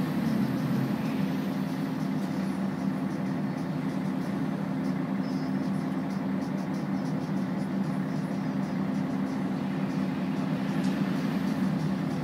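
Volvo B10BLE single-decker's rear-mounted six-cylinder diesel idling steadily, heard from inside the passenger saloon as a low, even hum.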